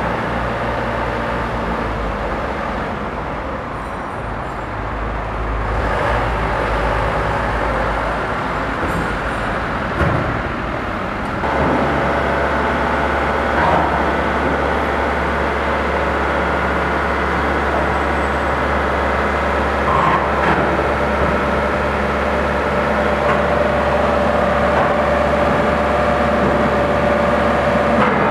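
Truck's diesel engine running steadily while its hydraulic tilt bed is raised into a loading ramp, with a few metallic clunks from the bed.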